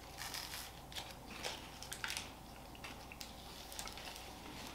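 Quiet chewing of a bite of dark chocolate caramel bar, with faint scattered clicks and crinkles of its wrapper being handled.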